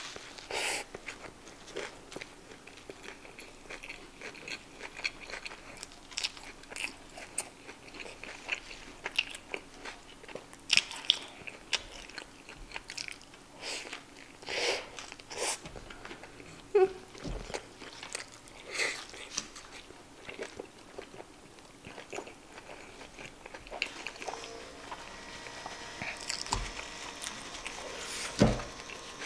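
Close-miked eating: bites into a cheeseburger and wet chewing with lip smacks, heard as many short irregular clicks and smacks, with a louder smack near the end.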